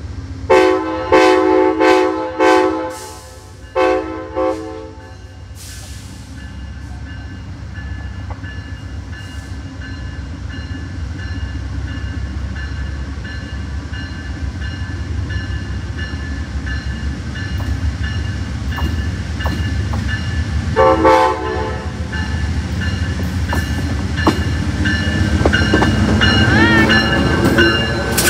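Amtrak GE P42DC diesel locomotive's air horn sounding a quick run of short blasts, then two more short toots, and a single short blast later on. Between them the locomotive's diesel engine and the train's wheels rumble louder as it rolls past, with a wavering squeal near the end.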